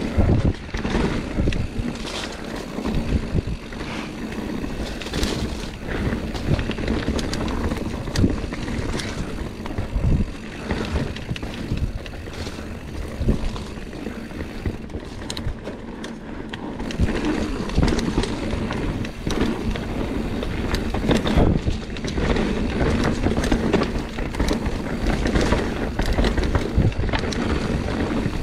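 Mountain bike riding a dirt singletrack trail: tyres rolling over dirt and rock, the bike rattling with frequent knocks and clatters, and wind on the microphone.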